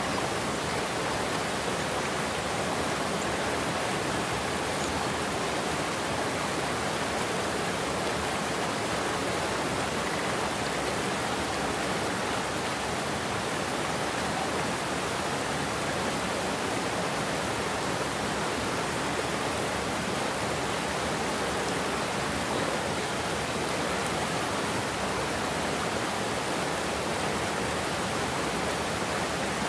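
Steady, unbroken rush of water, like water pouring over a weir into white water.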